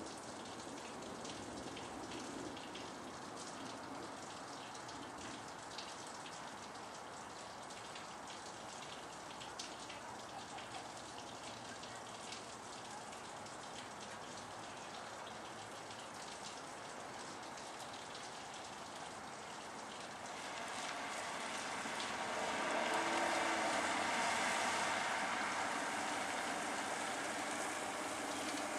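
Rain falling steadily, with scattered faint drop ticks. Over the last several seconds a louder noise builds up over the rain.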